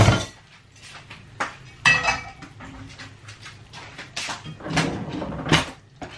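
Kitchen clatter while a meal is plated: a string of sharp knocks and clinks of utensils against dishes and pans, irregular, the loudest coming in the second half.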